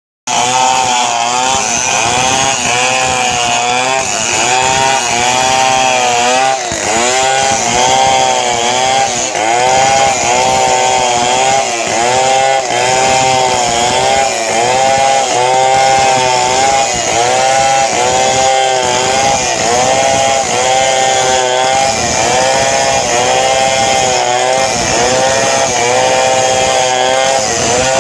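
Chainsaw running at high revs while cutting into gmelina wood, its pitch sagging and recovering over and over as the chain bites under load.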